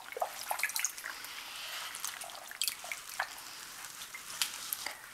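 Green Rit dye bath dripping and trickling back into a plastic tub as a wet shirt is dipped in and lifted out, many small drips scattered throughout.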